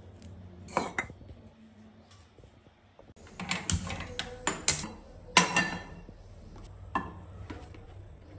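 Kitchen clatter at a gas stove: a few light knocks, then a short hiss and clicks as a burner is lit with a hand-held lighter, and a loud metallic clank with a little ringing as a nonstick frying pan is set down on the burner's metal grate, followed by a few lighter taps.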